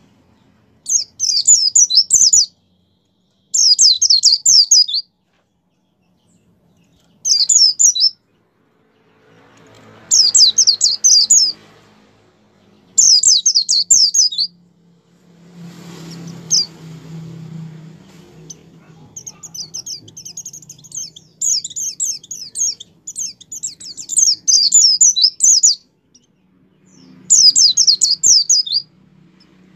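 A caged white-eye (pleci) singing energetically in short runs of rapid, high, twittering notes, each about one to two seconds long with pauses between. In the second half a longer unbroken stretch of song runs for several seconds.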